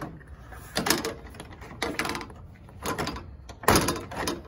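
Plastic push clips on a 2018 Ram 1500's radiator top cover snapping loose as the cover is pried and lifted by hand: four sharp plastic clacks about a second apart, with plastic rubbing between them.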